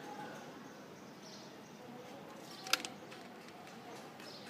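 Faint background ambience with a few short, high chirps and one sharp click a little before the three-second mark.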